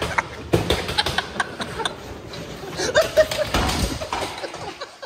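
People laughing and snickering, with scattered knocks and scuffs from the handheld camera being swung down to the floor.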